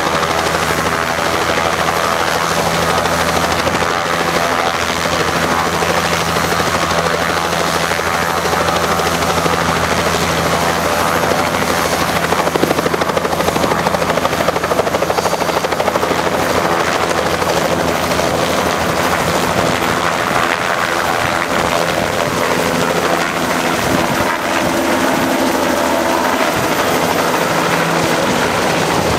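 Bell 206-type turbine helicopter running on the pad with its two-blade rotor turning. The high turbine whine climbs slowly as the engine spools up, and the helicopter lifts off and climbs away near the end.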